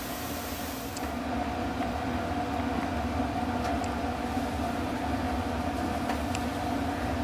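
Steady low mechanical hum over a rumble, with a couple of faint, brief high ticks.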